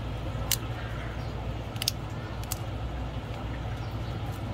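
A few short, sharp clicks and taps as an Oppo F11 Pro's plastic frame and screen are handled and pressed, over a steady low background hum.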